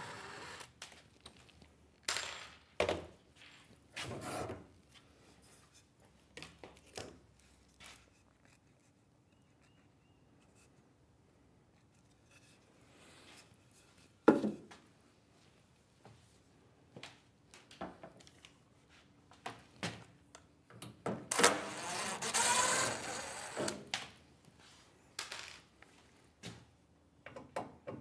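Scattered knocks, clunks and rubbing of wooden cabinet parts and hand tools being handled while a plywood microwave cabinet is taken apart. There is one sharp, loud knock about halfway through, and a few seconds of louder scraping noise in the last third.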